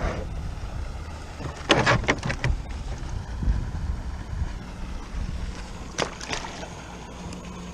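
Wind buffeting the microphone in a steady low rumble aboard a small fishing boat. Two short bursts of clattering knocks, about two seconds in and again about six seconds in, come from handling in the boat.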